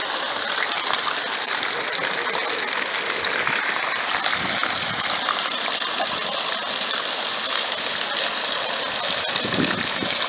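Steady hiss and splatter of fountain water jets arcing into a pool and falling onto the water and wet concrete.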